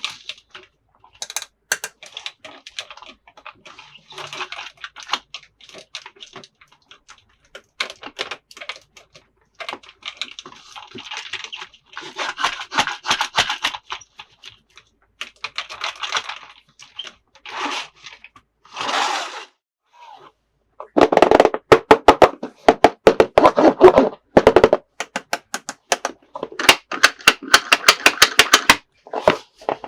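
Plastic toy packaging and toy parts being handled: scattered clicks, taps and crinkling rustles, then, about two-thirds of the way through, a run of loud, rapid clicking and rattling.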